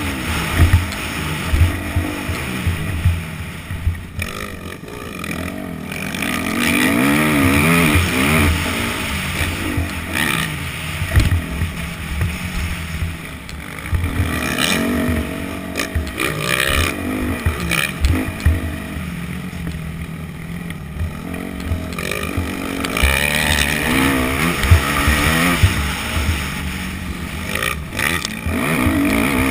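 Yamaha YZ250F four-stroke single-cylinder dirt bike engine revving up and down as the bike is ridden around a motocross track, the throttle opening and closing through the turns, with several quieter off-throttle dips. Wind buffets the helmet-mounted microphone and the ride adds frequent knocks.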